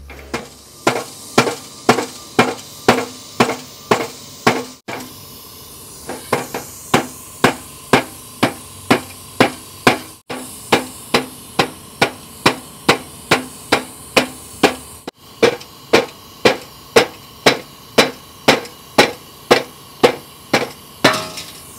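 Hammer blows on a radiator's soldered tank while the solder is heated to knock the tank loose from the core. The metal rings with each blow, in a steady rhythm of about two strikes a second, broken by three short gaps.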